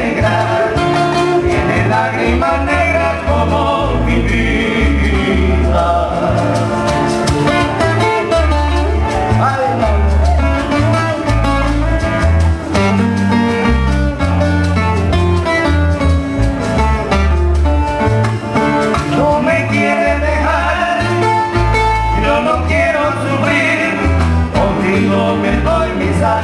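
Live Cuban son-bolero played by a trio: acoustic guitars picking the melody over a steady plucked bass line, with maracas shaking the rhythm.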